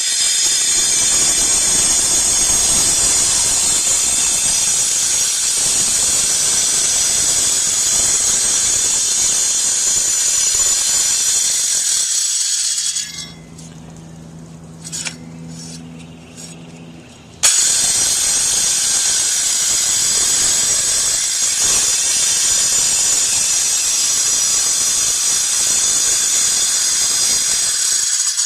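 Power grinder with a masonry blade cutting the reglet groove into a brick chimney's mortar joint for counter flashing: a loud, steady, high whine over gritty cutting noise. About 13 seconds in the cutting stops, leaving a quieter low hum for a few seconds, then it starts again abruptly and runs until just before the end.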